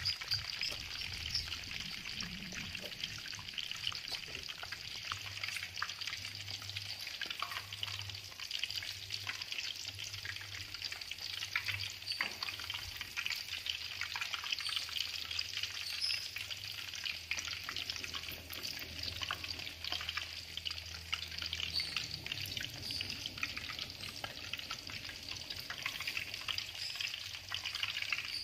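Avocado halves deep-frying in hot oil in an aluminium wok: a steady sizzle with many small crackles and pops, and a metal spatula moving them partway through.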